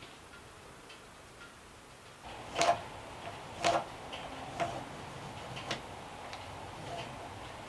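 A series of sharp knocks, roughly one a second, starting about two seconds in, with lighter ticks between them.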